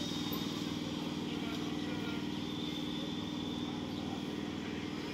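Indian Railways electric multiple unit (EMU) local train rolling slowly along the platform, a steady hum over the low rumble of its wheels on the track.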